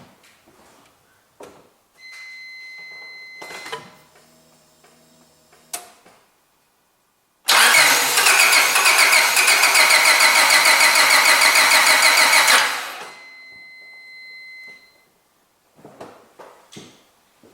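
Honda Civic petrol engine turned over by its starter motor for about five seconds during a spark test with a plug removed. It cranks steadily without catching and stops suddenly. A steady high electronic tone sounds for a second or two before and after the cranking.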